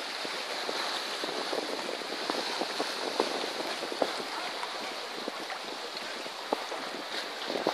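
Sea water washing and splashing at the shore: a steady rush with many small sharp splashes through it.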